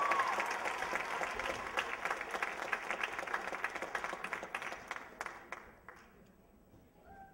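Audience applauding at the end of a dance performance, with a short cheer right at the start; the clapping thins out and dies away about five to six seconds in.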